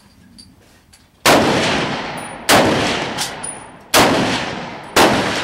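Rifle fired four times in quick succession, the shots a little over a second apart, each bang trailing off in a long echo.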